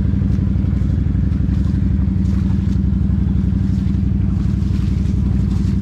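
An off-road vehicle's engine idling steadily at an even pitch, with no revving.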